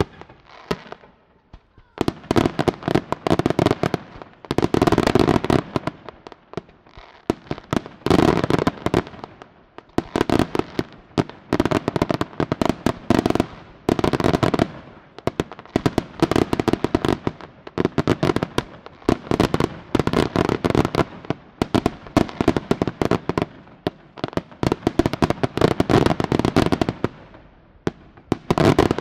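Aerial fireworks display: dense volleys of sharp reports and crackling, swelling in waves roughly every two seconds after a short lull near the start.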